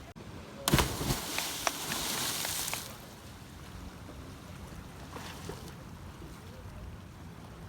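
A person jumping into lake water: a sudden splash about a second in, then about two seconds of water spray and churning that dies away.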